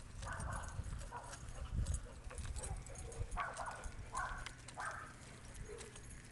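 Leashed dogs breathing hard in short rhythmic bursts, about one a second, with a chain leash clinking and a few low thumps.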